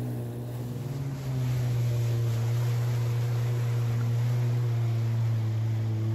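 Jet ski engine running steadily at low speed, a constant low drone that gets a little louder about a second in.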